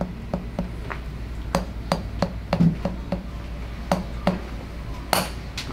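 Chiropractic mallet tapping: about a dozen short, sharp knocks, two or three a second with a brief pause midway, and a short hiss near the end.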